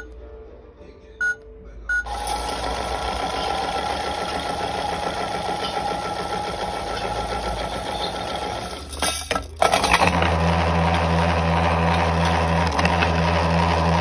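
Toy washing machine's control buttons beep three times, then its small electric motor whirrs steadily, spinning the drum with the plastic beads inside rattling. After a brief break about nine seconds in, the motor comes back louder with a deeper hum.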